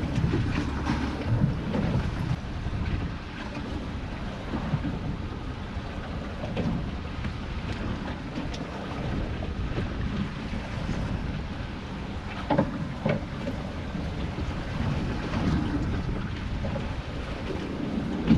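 Wind buffeting the microphone on the deck of a small boat at sea, over the wash of water against the hull. A few short knocks come about two-thirds of the way through.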